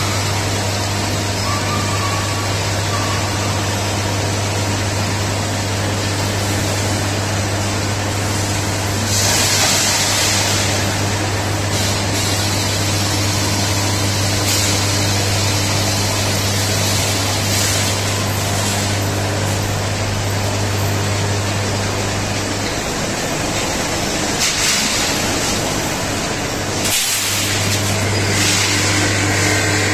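Industrial basket-type frying machine running: a steady low hum under a constant rushing noise, with louder hissing stretches about nine seconds in and again near the end.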